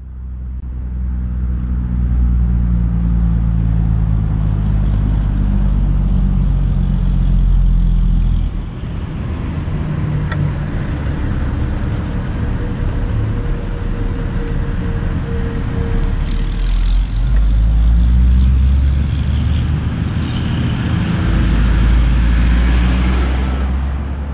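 Heavy Kenworth dump truck's Caterpillar diesel engine running loud under load, its pitch dropping and then climbing again as the truck goes through the gears.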